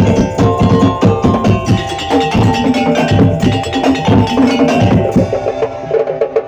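Madurese ul-daul percussion ensemble playing a fast, busy rhythm of wooden knocking percussion and deep drum strokes, with ringing tuned metal notes over it. The deep drum strokes thin out near the end.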